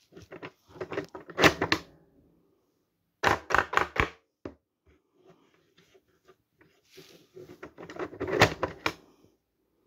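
Plastic clicks and clacks of a 3D-printed pinball drop target bank as its four targets are knocked down and reset up. The clicks come in three groups: a cluster in the first two seconds, four quick clicks about three to four seconds in, and a dense run around eight seconds with the loudest clack.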